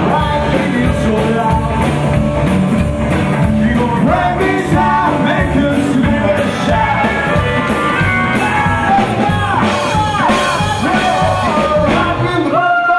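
Live rockabilly band playing: a male singer over electric guitar, upright double bass and drum kit, at a driving rock-and-roll beat.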